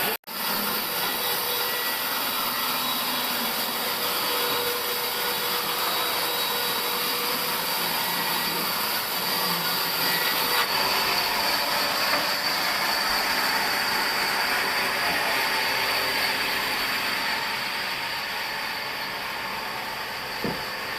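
Sawmill saw running and cutting through an old pine log: a steady, dense machine noise with a constant whine over it.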